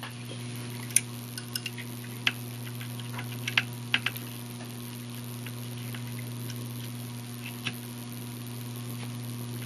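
Solder and flux crackling in a few small sharp ticks as a soldering iron melts solder onto a circuit-board pad and wire, most of them in the first four seconds and one more near the end, over a steady low hum.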